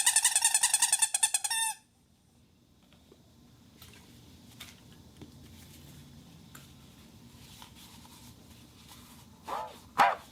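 A whistle sounding a clear, high tone with a fast warbling trill for about two seconds, then quiet with faint handling clicks, then a few short whistled notes that bend in pitch near the end.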